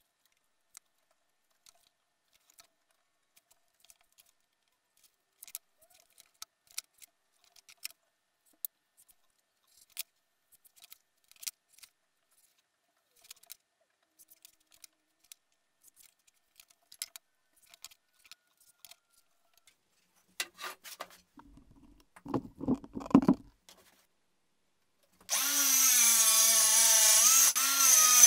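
Light taps and clicks of a metal ruler and pencil marking out plywood, a few knocks and a short scrape as the track and saw are set on the board, then about three seconds from the end a DeWalt cordless circular saw starts suddenly and runs at a steady pitch, cutting the plywood along the guide track. The saw is by far the loudest sound.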